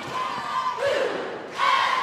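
Cheerleading squad shouting a rhythmic cheer in unison, in short phrases less than a second apart, over arena crowd noise.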